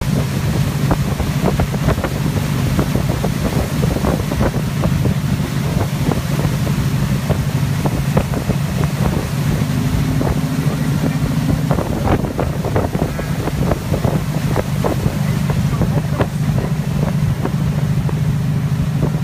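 Motorboat engine running steadily at towing speed, with rushing water, wind on the microphone and many short slaps of water against the hull.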